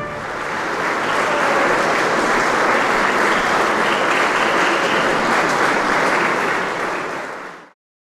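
Large audience applauding steadily, fading out quickly near the end.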